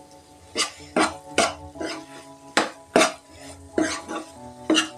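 Steel spatula scraping and clinking against a nonstick pan while stirring a thick, dry egg masala, about seven separate strokes.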